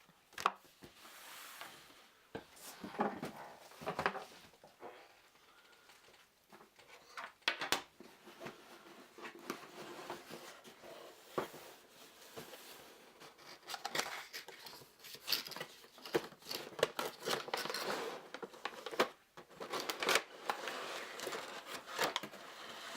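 Plastic packaging crinkling and tearing, with irregular clicks and rattles of hard plastic game pieces and trays being handled and unpacked.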